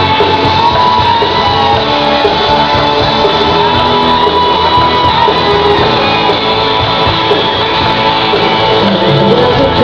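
Loud music playing.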